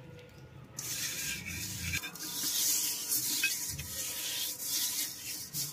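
A hand rubbing wet mud over the outside of a metal cooking pot, giving a continuous wet scraping hiss. It starts about a second in and stops just before the end.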